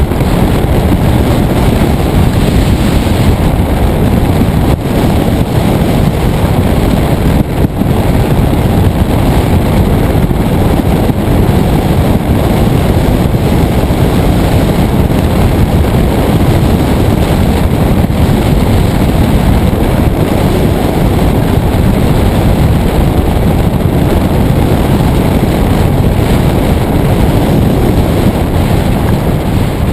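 Steady wind rushing over the microphone of a hang glider in flight, loud and strongest at the low end, with no engine or other tone.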